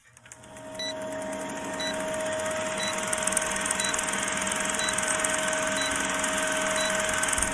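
Old film-projector countdown sound effect: a steady whirring, clattering hiss that slowly grows louder, with a short high beep about once a second as the numbers count down.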